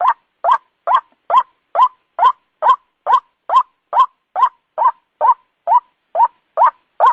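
White-breasted waterhen call: a short croak bending upward, repeated at a steady, unvarying pace of a little over two calls a second with clean silence between, as in a looped bird-lure recording.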